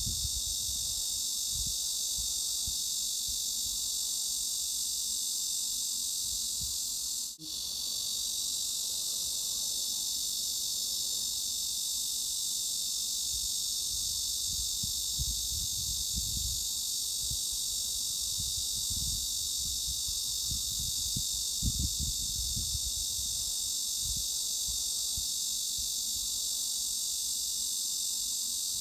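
Cicadas buzzing in a dense, unbroken high-pitched drone, with an uneven low rumble underneath. The sound cuts out for an instant about seven seconds in.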